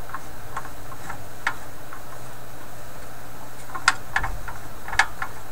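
Stromberg Carlson FR503/504 tube radio's speaker turned up to full volume, giving out a steady hiss and low hum with irregular crackles and clicks and no station tuned in, two louder crackles near the end.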